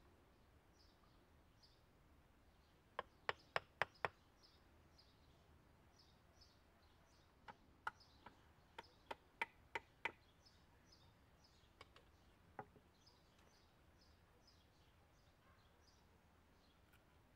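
Hatchet blows on wood, heard as sharp knocks: five quick strikes about three seconds in, a looser run of about eight a few seconds later, then a couple of single strikes. Behind them a small bird repeats a short high chirp about twice a second.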